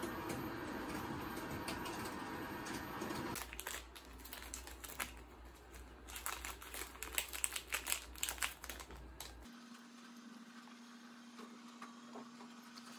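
Paper pages of a spiral-bound workbook being flipped and handled: a run of quick, irregular rustles and crinkles, thickest a few seconds in the middle. It follows a steady hum at the start and gives way to a quiet low hum near the end.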